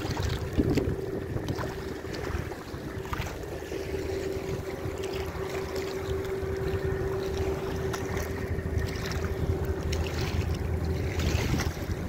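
Wind buffeting the microphone over the steady drone of a river pushboat's engine as it pushes a train of barges, heard as one constant hum, with river water splashing against the bank.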